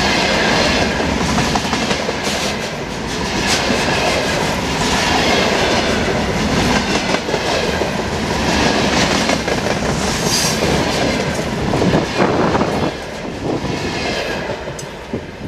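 Freight train wagons passing close by at speed, wheels clattering rhythmically over the rail joints in a dense, steady rumble. The sound drops as the tail of the train goes by near the end.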